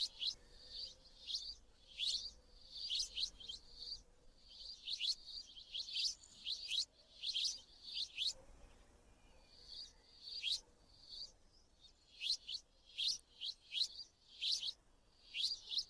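Sparrow chirping: short, sharp chirps in quick clusters of several a second, with a brief pause about eight seconds in.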